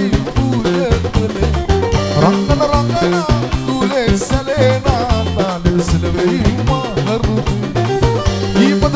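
Live band music with a steady drum-kit beat and a bass line, and a man singing over it.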